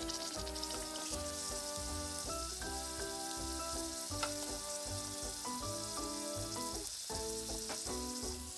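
Oil sizzling steadily as starch-coated pieces of dried vegetable deep-fry in a small pan, under background music with a pulsing bass and a melody.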